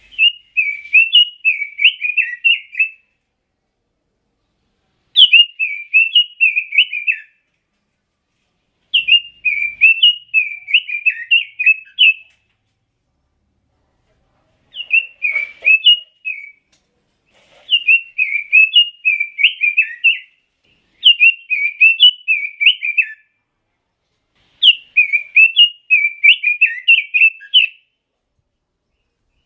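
Pekin robin (red-billed leiothrix) singing: seven rapid warbled phrases of two to three seconds each, separated by pauses of one to two seconds.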